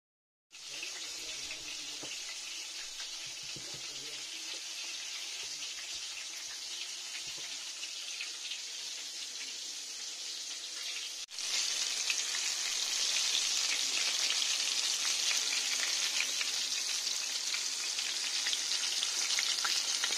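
Flour-breaded chicken pieces sizzling as they shallow-fry in hot oil in a pan, a steady crackling hiss that jumps louder at a cut about eleven seconds in.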